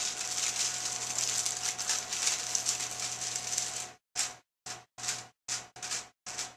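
Clear plastic film crinkling as it is peeled back off a microwaved TV-dinner tray, steady for about four seconds, then in short broken snatches with dead silences between them. A faint steady hum runs underneath.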